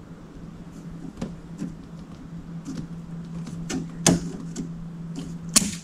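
Wire cutters and speaker wiring being handled: scattered light clicks and snips, with two sharper clicks about four seconds in and near the end, over a faint steady hum.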